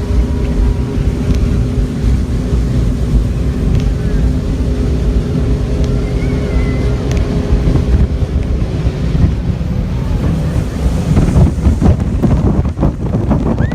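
A tour jet boat's engine runs steadily under way, a low rumble with a constant hum, while wind buffets the microphone, more roughly near the end.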